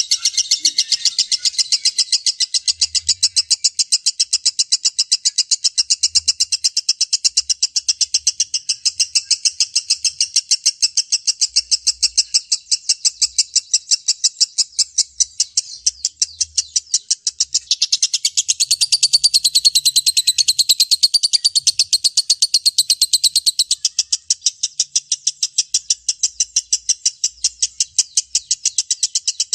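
Lovebird's long 'ngekek' chatter: a shrill, unbroken string of rapid repeated chirps, several a second, fuller and higher-pitched for a few seconds past the middle.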